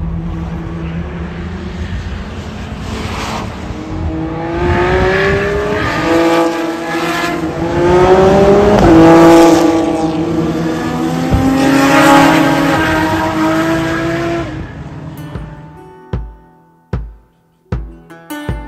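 Track-day cars on a race circuit accelerating past, with engine notes rising through the gears and dropping between them, loudest in the middle as the bunch goes by. The engines fade, and plucked acoustic guitar music takes over for the last couple of seconds.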